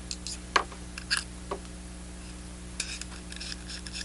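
Small clicks and light ticks of the PTS200 soldering iron's metal parts being taken apart by hand and set down: a few single clicks in the first second and a half, then a quick run of light ticks near the end.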